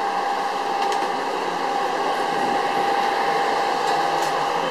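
Restaurant kitchen ventilation fans whirring steadily, with a constant mid-pitched whine over the rush of air.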